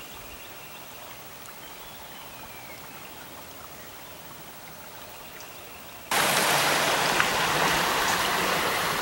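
Rain-swollen, muddy creek rushing past, a loud steady hiss of running water that starts suddenly about six seconds in. Before it there is only a faint, quiet woodland background.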